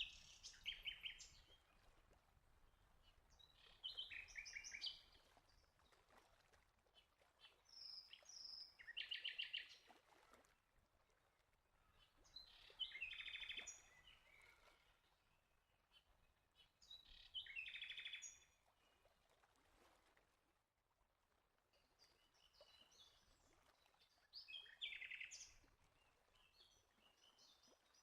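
A songbird singing faintly, repeating short high chirping phrases every few seconds, with a longer pause in the middle.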